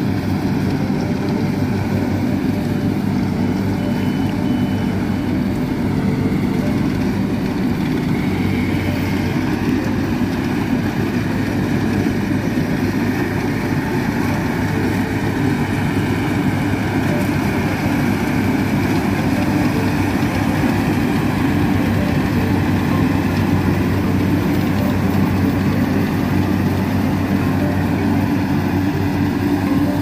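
Rice combine harvester's engine running steadily under load as it works the field, an even, unbroken drone.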